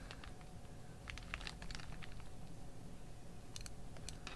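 A few faint light clicks of plastic Technic-style beams being handled and knocked together, clustered in the first two seconds and again shortly before the end.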